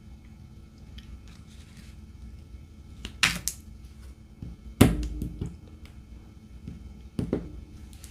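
A few sharp clicks and knocks of small tools and plastic being handled at a diamond-painting work surface, the loudest a knock about five seconds in.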